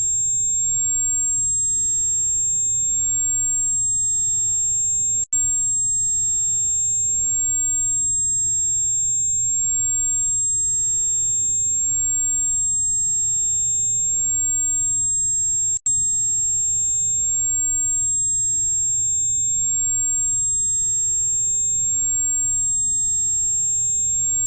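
A steady, very high-pitched electronic tone for tinnitus relief, with fainter tones above and below it over a faint low hum. It cuts out for an instant twice, about five seconds in and about sixteen seconds in.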